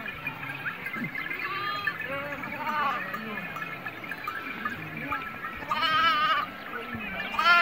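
Flock of sheep and goats bleating, many calls overlapping at different distances. Two louder, closer bleats with a quavering pitch stand out, about six seconds in and at the very end.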